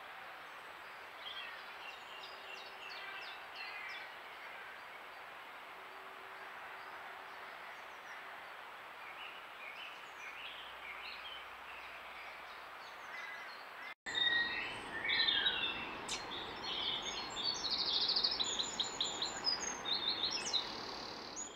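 Dawn chorus of several songbirds over a steady background hiss. About two-thirds of the way in the song suddenly becomes much louder and busier, with fast repeated notes near the end.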